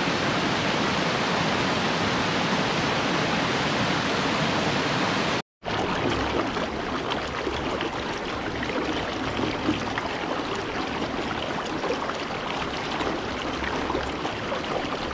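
Mountain creek rushing over a rocky cascade, a steady hiss of water. About five and a half seconds in it cuts off for a moment, then a shallow creek rippling over stones takes over, a little quieter and with more low rumble.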